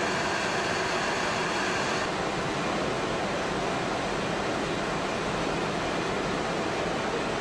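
Carbon-fibre stitching machine and factory hall running: a steady rushing machine noise with a few faint steady tones in it. The higher part of the noise drops away a little about two seconds in.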